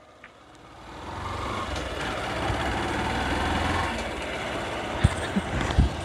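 Motorcycle pulling away and riding along, its engine and the rush of wind rising about a second in and then holding steady.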